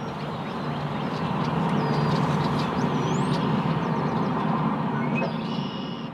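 A motor vehicle passing: steady engine and road noise that swells over the first two seconds and fades near the end, with a few high chirps around the middle.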